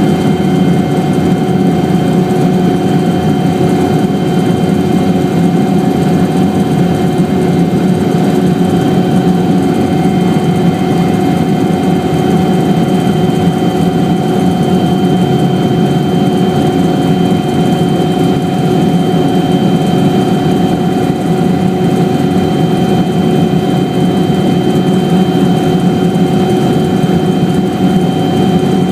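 Helicopter in flight: a loud, unchanging drone of engine and rotor with constant whining tones over it.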